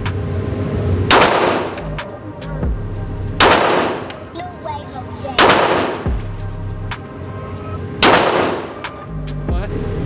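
Four single handgun shots fired slowly, about two to two and a half seconds apart, each with a short echoing tail.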